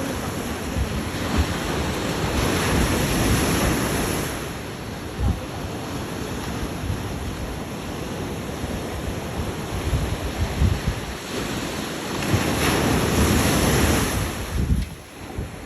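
Ocean surf breaking and washing on a beach, swelling louder twice, with wind buffeting the microphone in gusty low thumps.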